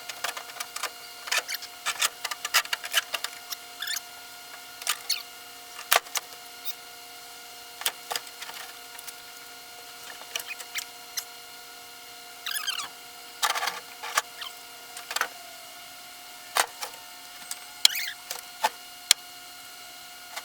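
Front seat of a 1965 Mercury Comet being twisted and worked through the door opening: irregular knocks and clunks with a few short squeaks, the seat jamming and not coming out.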